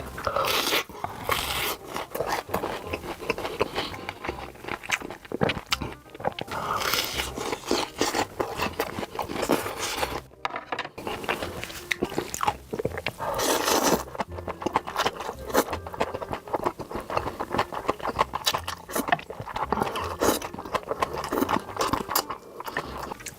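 Close-miked ASMR eating sounds: crunchy bites and chewing, mixed with scraping, in a dense, irregular run of clicks and crunches. They stop briefly about ten seconds in, then resume.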